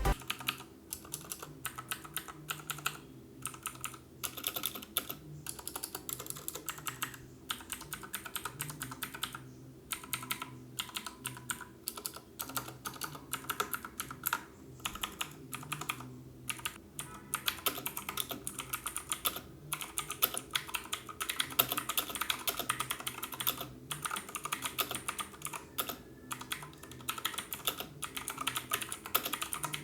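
Typing on a Redragon K551 mechanical keyboard with Outemu Blue clicky switches: a fast, continuous run of sharp key clicks, broken by a few short pauses.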